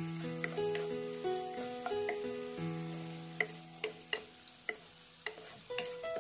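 Sliced onions, green chillies and bay leaves sizzling in hot oil in a non-stick pan as they are lightly fried, with a wooden spatula stirring and tapping against the pan in sharp clicks every half second or so. Soft background music with held notes plays under it.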